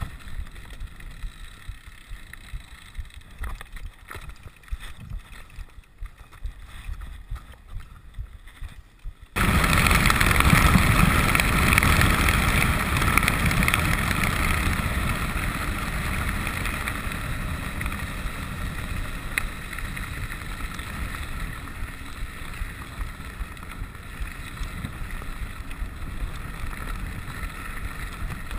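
Wind rushing over the microphone and the tyres of a rigid 29er mountain bike rolling on a gravel road during a fast descent. The first part is gusty and moderate; about nine seconds in it abruptly becomes a much louder, steady rush that slowly eases.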